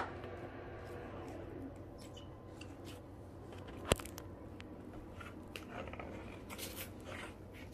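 Plastic wrapping on a cardboard puzzle box being picked at and peeled off: faint, scattered crinkling and crackling, with one sharp click about four seconds in.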